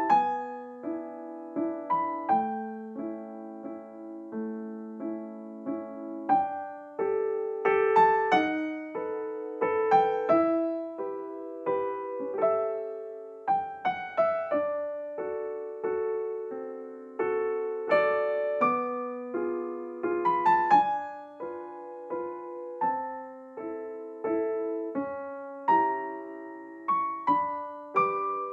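Background music: a gentle piano piece, single notes and chords struck one after another and left to ring.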